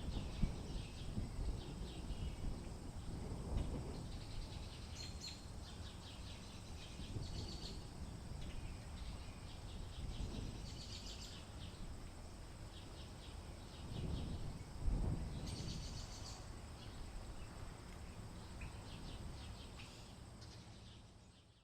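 Small birds chirping in short, rapid trilled bursts every few seconds, over a steady low rumble with a few low thumps.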